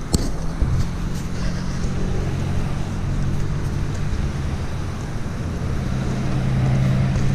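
Road traffic at a signalled intersection: car engines running as a steady low hum, growing a little louder near the end, with a sharp tick or two in the first second.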